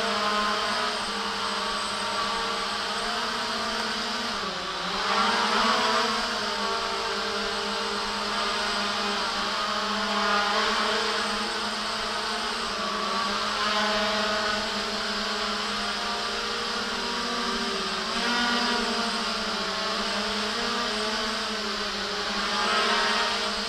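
JJRC X1 quadcopter's motors and propellers buzzing in flight, a steady many-toned drone. The pitch dips and comes back up about four and a half seconds in, and the sound swells briefly every four to five seconds as the throttle is worked.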